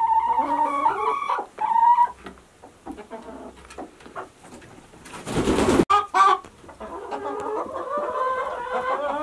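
Chickens clucking and calling close by, with a short rush of rustling noise ending in a click about five seconds in and a long wavering call near the end.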